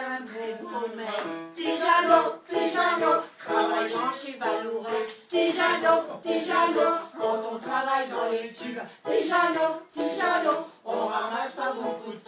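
Music with several voices singing together in short, rhythmic phrases.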